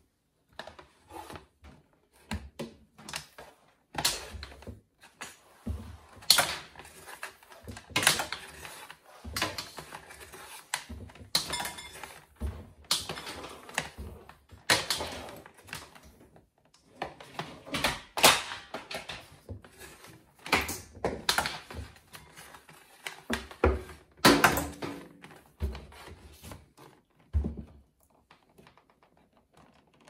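Irregular clicks, knocks and clatter of hard objects being handled, several a second at the busiest, with no motor running. They thin out near the end.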